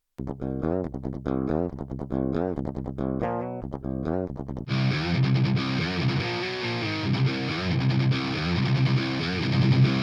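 Metal demo track of electric guitar through the Audio Assault Bulldozer amp simulator plugin: distorted guitar picks a line of separate notes, then about five seconds in the full, dense mix comes in with heavy rhythm guitars.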